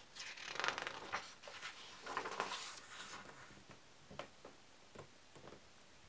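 Pages of a hardcover book being turned by hand: paper rustling and flapping for about three seconds, then a few soft paper ticks as the turned leaves settle.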